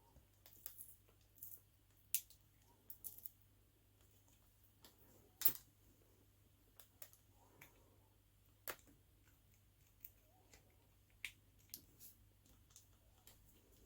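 Scattered faint plastic clicks and scrapes as the stick-on emblem is prised off an Alfa Romeo flip key's casing, a few sharper clicks standing out among them.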